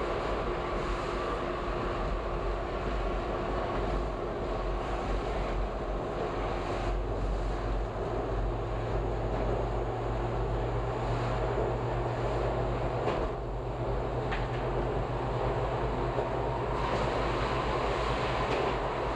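Toronto subway train running through a tunnel: a steady rumble of wheels and running gear on the rails, with a low hum that grows stronger about halfway through.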